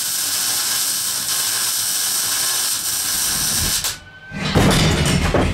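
A power tool working the steel tube kart frame: a steady hissing grind for about four seconds that cuts off, then a louder, rougher burst near the end.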